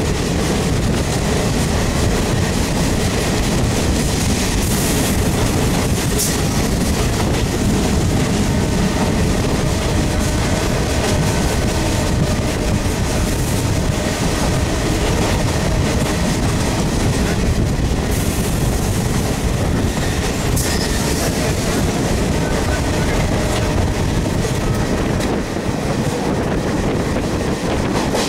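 A DEMU passenger train running at speed, heard from inside the coach at an open window: a steady, loud noise of wheels running on the track.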